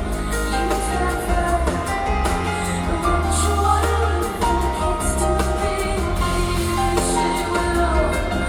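Live band music with a woman singing over a heavy, steady bass.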